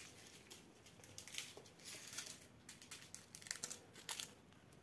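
Small plastic sachets of diamond-painting drills crinkling as they are picked up and handled: a string of short, faint rustles.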